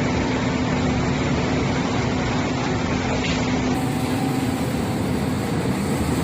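Excavator working on site: a steady machine hum under a dense rumbling noise, changing slightly about four seconds in.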